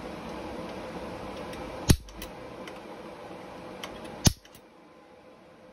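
Welder tack welding an aluminium charge pipe: two sharp snaps about two and a half seconds apart, over a steady shop hum that drops off after the second snap.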